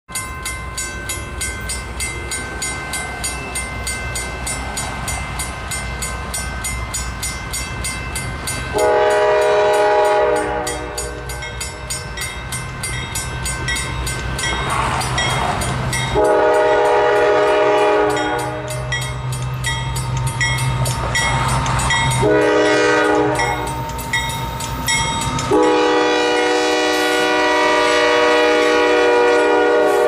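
Approaching freight train led by GE AC4400CW diesel locomotives, the engines running with a steady rumble. About nine seconds in, the lead unit's horn, a chord of several notes, starts the grade-crossing signal: long, long, short, long, the last blast held for about four seconds as the locomotives arrive.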